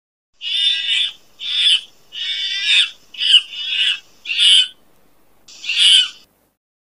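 Ring-tailed lemurs calling: a series of seven short, high-pitched cries, each under a second, with brief gaps between them.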